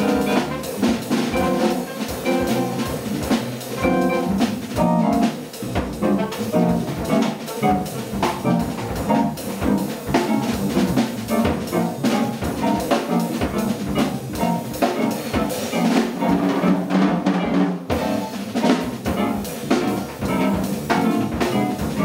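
Live free-improvised jazz from a quartet: saxophone, upright double bass, electric keyboard and drum kit playing together, with busy, irregular drum and cymbal strokes throughout.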